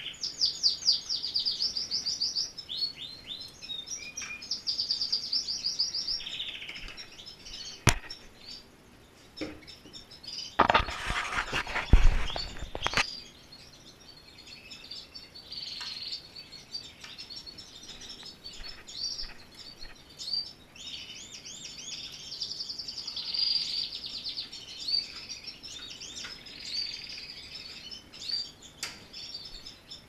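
Canaries singing in fast repeated trills and chirps. A single sharp click comes about eight seconds in, and a loud burst of rustling and knocking follows around eleven to thirteen seconds.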